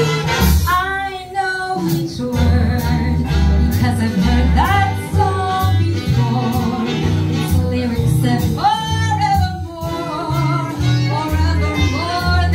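Recording of a live band played back from a reel-to-reel tape through loudspeakers: a singer over guitar and a pulsing bass line.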